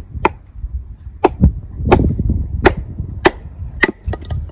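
Gransfors Bruks Small Forest Axe splitting a small piece of dry wood on a chopping block: a series of about seven sharp wooden knocks, roughly one every half second, over a low wind rumble on the microphone.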